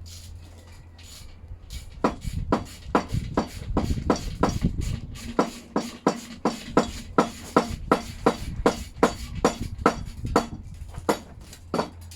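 Ratchet wrench clicking in quick, even strokes, about three to four a second, as a 16mm gearbox-to-engine bolt is undone. The clicks start about two seconds in and stop near the end, over a steady low hum.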